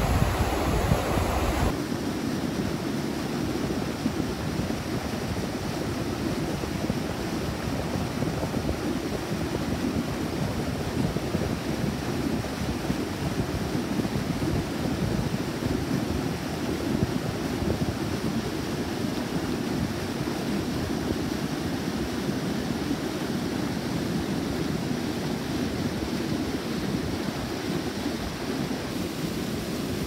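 Steady rushing of a rain-swollen river pouring over a low weir. The rush is louder and deeper for the first couple of seconds, then even.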